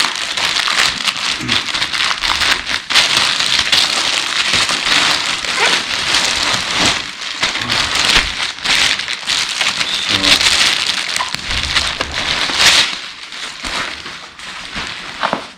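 Plastic wrapping crinkling and crackling as it is handled and pulled open, thinning out near the end.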